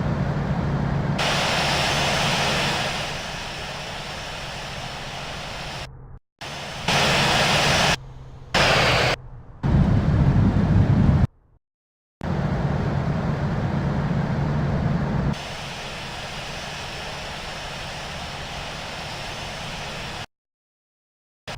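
Jet engine noise of an Airbus A380, with its four turbofan engines, as it comes in to land. The noise is steady with a low hum beneath it. It is heard as a string of short takes that swell louder in places and cut off abruptly into silence several times.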